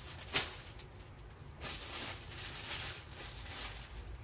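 Plastic bags rustling and crinkling in short spells as wrapped items are handled, with a single sharp knock about half a second in.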